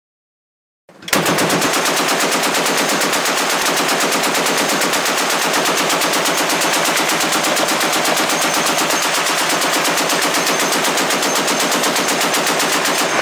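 M2 Browning .50-calibre heavy machine gun firing one long, unbroken burst of rapid, evenly spaced shots, starting about a second in.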